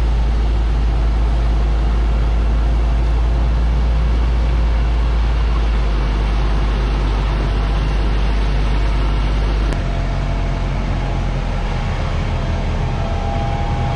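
John Deere 8270R tractor running steadily under load, pulling a seed drill through the field, with a heavy low rumble. About ten seconds in the sound changes abruptly to a steadier engine tone.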